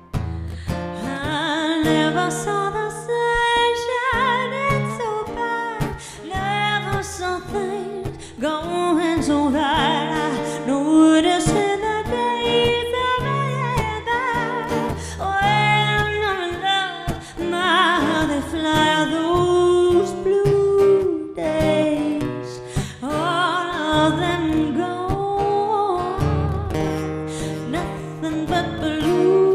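A woman singing a melody into a microphone, accompanied by strummed and picked acoustic guitar chords.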